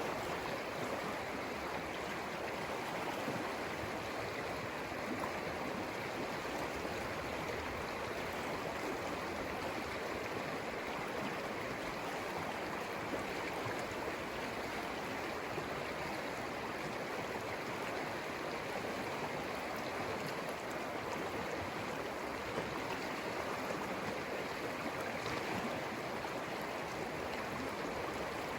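River flowing: a steady, unbroken rush of water.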